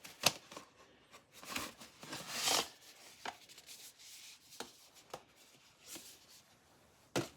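Packaging of a new bicycle disc brake rotor being handled and opened: a stretch of rustling and tearing between about one and a half and nearly three seconds in, with scattered sharp clicks and taps before and after.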